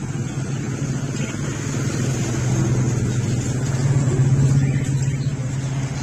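Motor vehicle engine running close by, a steady low hum that grows louder about four seconds in.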